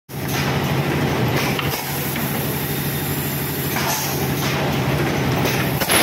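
Automatic PET bottle blow moulding machine running: a steady mechanical hum with short hisses of compressed air every second or so, and a louder air blast near the end.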